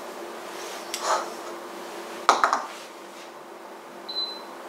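Glass bottle set down on a worktop, clinking twice, then a single short high beep near the end from an induction hob's touch controls being pressed to switch it on.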